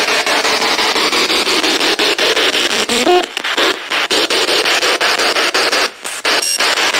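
Spirit Box radio scanner played loud through a JBL portable speaker, sweeping rapidly through radio stations: dense hiss and static chopped into quick fragments, with a brief snatch of broadcast sound about three seconds in and a short dropout near six seconds.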